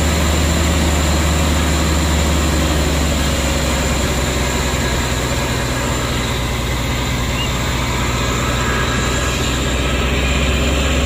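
Heavy truck engine running steadily as the truck drives, heard from on board: a loud, even low drone.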